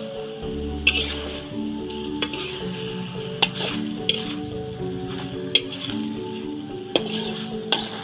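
Sliced boiled eggs sizzling as they are stir-fried in chilli paste in a metal wok, with a spatula scraping and clinking sharply against the pan about seven times.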